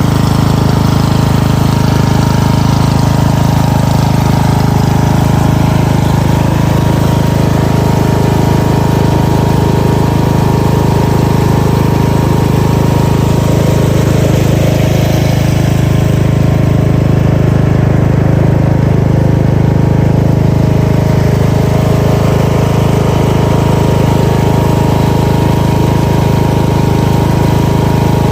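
An engine running loud and steady at a constant speed close to the microphone, with an unchanging low hum and no revving.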